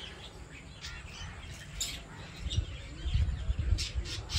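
Small birds chirping, a few short scattered calls over a steady outdoor hiss. A low rumbling noise comes in and grows louder from about halfway through.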